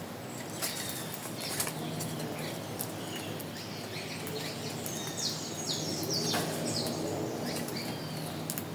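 Wild birds calling over a steady background hiss of the habitat, with several short sharp clicks and, in the middle, a quick run of high, falling notes.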